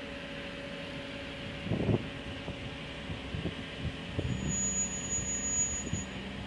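Jeep Wrangler Rubicon crawling slowly down slickrock, its engine a steady low hum, with a few dull knocks, the loudest about two seconds in, as the front tyre works toward the edge of a rock crack.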